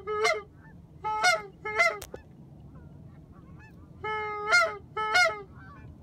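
Goose call blown close by in honking sequences. Each held low note cracks upward into a honk, followed by a quick second honk, repeated in pairs. A single sharp click comes about two seconds in.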